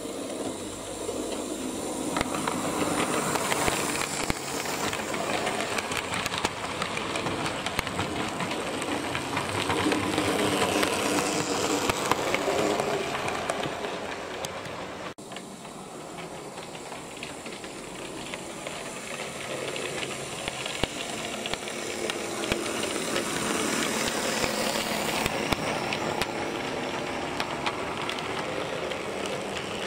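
Model train running on the layout track: a steady rolling rattle of small wheels with many fine clicks and an electric motor hum. It swells and fades as the train goes round, drops briefly about halfway through, then builds again as the coaches pass close by.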